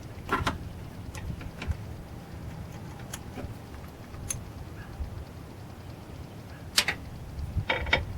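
Scattered light metallic clicks and clinks of hand tools being handled at a tractor's fuel filter, with one sharper click about seven seconds in and a quick cluster near the end, over a low steady rumble.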